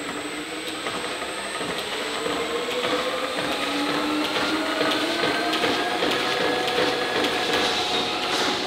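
Beaudry No. 11 power hammer's belt drive spinning up: a whine that rises slowly in pitch and grows louder over several seconds, with light mechanical ticking and rattling.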